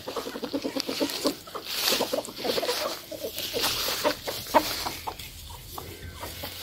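A flock of hens clucking as they forage, with a quick run of clucks about a second in and scattered single clucks after.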